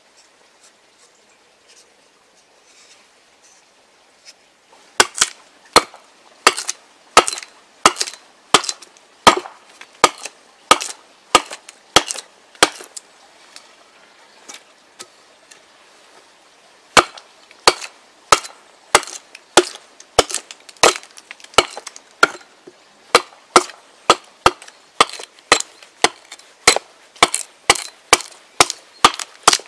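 Hatchet hewing a wooden stick: a run of sharp chops as the blade bites into the wood, starting about five seconds in at roughly one and a half a second. The chops pause briefly mid-way, then resume and quicken to about two a second near the end.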